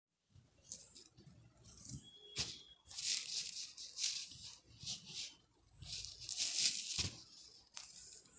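Hands running through and fluffing long curled hair: repeated dry, rustling swishes about once a second, with a few sharp clicks.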